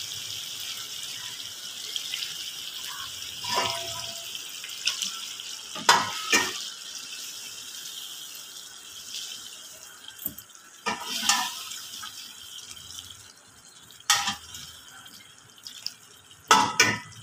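Kofta curry bubbling in a non-stick pan after water has been added: a steady hiss that gradually dies down. A wooden spoon stirs it and knocks against the pan several times.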